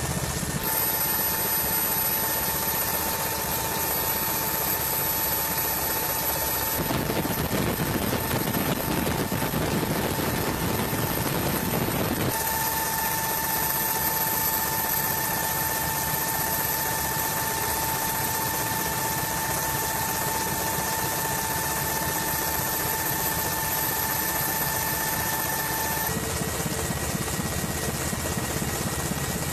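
Steady aircraft noise: a dense engine drone with a steady high whine, shifting abruptly in tone a few times.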